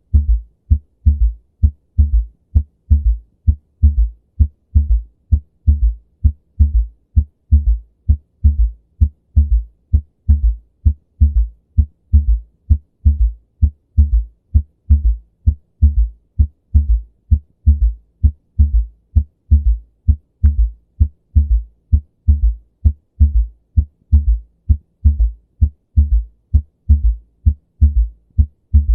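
Heartbeat heard through a stethoscope-style recording with a third heart sound (S3 gallop): low, dull thuds repeat in a steady galloping rhythm, an extra soft beat following the 'lub-dub' early in diastole. The third sound comes from blood flowing from the left atrium into the left ventricle and suddenly slowing; it is normal in young people and athletes but in older people indicates congestive heart failure.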